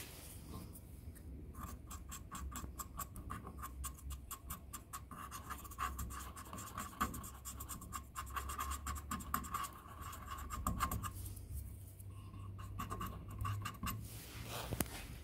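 A small tool scraping rapidly back and forth across the top of a surface-mount IC on a TV power supply board, several strokes a second. It starts about a second and a half in, pauses near eleven seconds, then scrapes briefly again.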